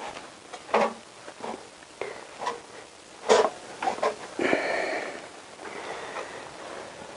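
Irregular metal clicks, knocks and short scrapes of a hand tool working against a motorcycle engine's cylinder block and crankcase, the loudest knock about three seconds in.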